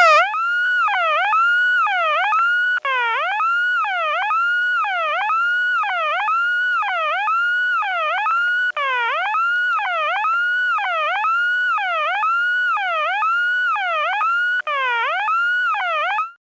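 Bell System intercept tone over a 1970s telephone line: a loud warbling tone that swoops down and back up about one and a half times a second, over a faint steady tone. It signals that the dialled call cannot be completed.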